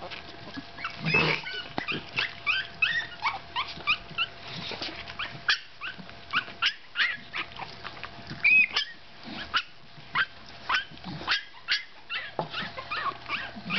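A litter of 15-day-old Staffordshire Bull Terrier puppies squeaking and whimpering: many short, high-pitched squeaks, several a second, often overlapping.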